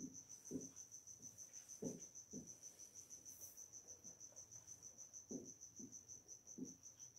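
A cricket chirping in a rapid, even high-pitched pulse of about eight chirps a second. Under it are faint, soft, irregular strokes of a marker writing on a whiteboard.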